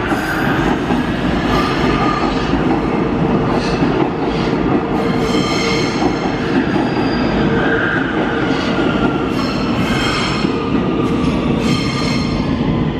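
Metro train running along the track in an underground station, a steady rumble with the steel wheels squealing on and off against the rails.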